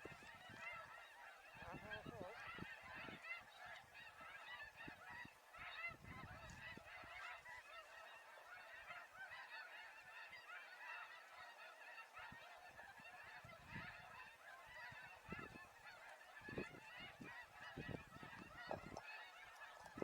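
Faint, continuous chatter of many snow geese calling at once, a dense mass of overlapping high yelps and honks.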